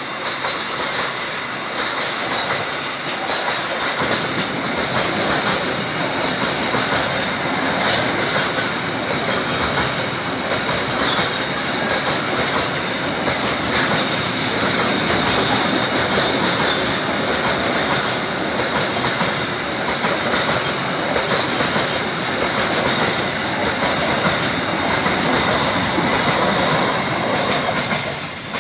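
Container freight train's loaded flatcars rolling past at close range: a steady rumble and clatter of wheels over the rails, with a thin, steady high squeal from the wheels. The noise falls away at the very end as the last wagon passes.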